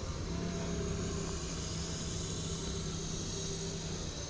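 Doosan 4.5-ton forklift's engine running at a steady speed, heard from inside the cab, a constant drone with a steady hum that settles in about a third of a second in.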